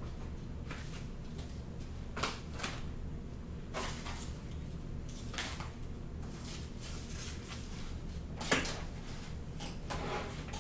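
Scattered knocks and clunks of objects being moved and set down on furniture, the sharpest about eight and a half seconds in, over a steady low hum.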